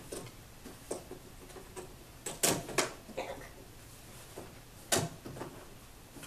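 A few scattered knocks and clicks over a quiet room: small ones near the start, a loud pair about two and a half seconds in, and another loud knock about five seconds in.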